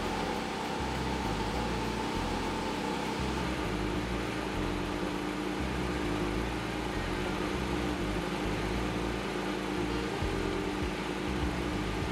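Porsche 718 Cayman GT4 RS's 4.0-litre naturally aspirated flat-six idling steadily, under background music with a stepping bass line.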